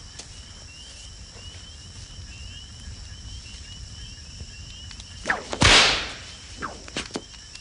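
A whip swung and lashed once across a man's bare back, a loud crack about five and a half seconds in: the first stroke of a flogging. Crickets chirp steadily underneath.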